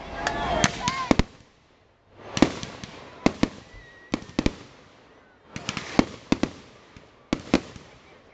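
Aerial fireworks shells bursting: a string of sharp bangs and pops, some close together in pairs and threes, after a brief lull about a second and a half in.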